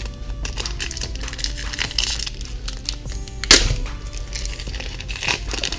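Crinkling and crackling of a Pokemon trading-card pack wrapper being torn open and handled, in many short crackles with the loudest about three and a half seconds in. Background music plays underneath.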